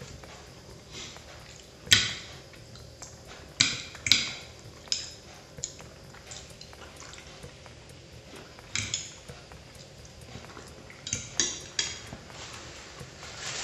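Metal fork and knife clinking against a ceramic plate while cutting and picking up food. The sharp clinks come at irregular intervals, each ringing briefly. The loudest is about two seconds in, with a quick run of clinks near the end.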